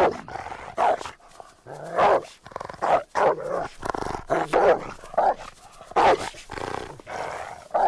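A cartoon dog barking and growling in a string of short calls, about one a second.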